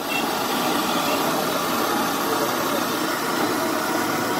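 Jalebi batter frying in a wide pan of hot oil, giving a steady sizzle.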